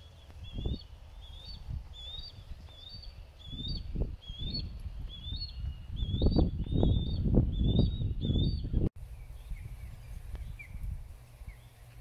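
Footsteps thudding on a wooden boardwalk, heaviest from about six seconds in, while a bird repeats a high two-part call about twice a second. Both stop abruptly near nine seconds, leaving fainter bird chirps over a low steady rumble.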